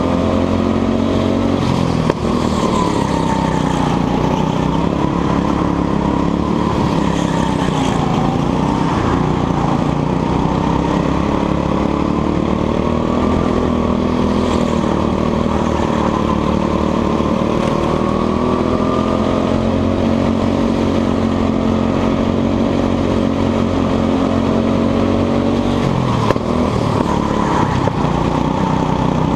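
Go-kart engine running hard at speed, its pitch dropping as the kart slows for corners about two, eight and twenty-six seconds in and climbing again as it accelerates out.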